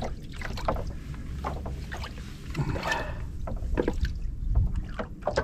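Scattered light knocks and handling noises in a small fishing boat, over a low steady rumble.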